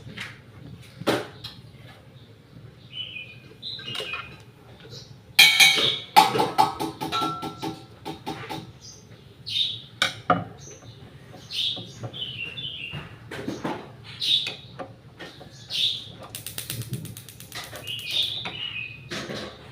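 Birds chirping now and then over scattered clicks and knocks. A burst of metallic clattering with a ringing tone comes about five to seven seconds in, and a quick run of clicks comes near the end.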